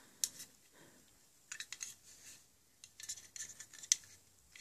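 Faint clicks and light rustling of small plastic toy playset pieces being handled and set down: one sharp click near the start, then scattered small clicks from about a second and a half in.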